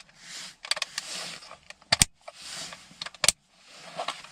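Plastic air-vent parts scraping and rubbing as they are handled and fitted back together, with two sharp plastic clicks, about two seconds in and about three seconds in.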